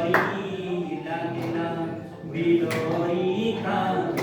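A man singing a melody, his voice holding and bending through drawn-out notes.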